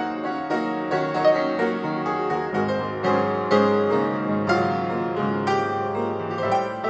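Background piano music, a steady run of single notes and chords.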